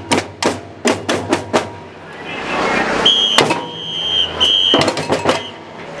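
Marching drums struck with sticks in quick, uneven hits, then a whistle blown in several short high blasts over crowd voices, with a few more drum hits in between.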